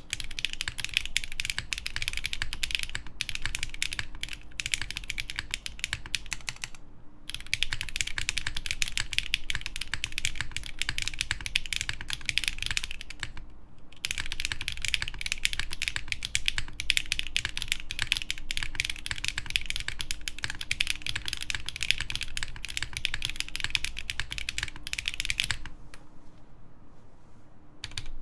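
Steady, fast typing on an Ikeygai Albatross TKL mechanical keyboard with HMX Sunset Gleam linear switches, a polycarbonate plate and GMK keycaps. The typing pauses briefly about seven and fourteen seconds in, and stops a couple of seconds before the end.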